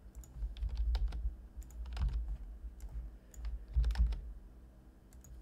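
Computer keyboard being typed on in irregular, scattered keystrokes, a few sharp clicks at a time.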